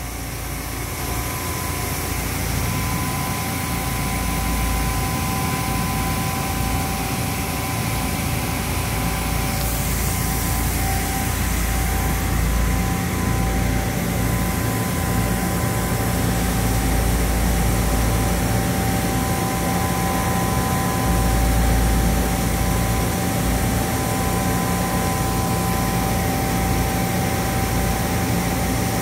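DMG DMU 210P 5-axis machining center running a cutting program with through-spindle coolant spraying inside the enclosure: a steady machine hum and hiss with two steady high tones over a low rumble.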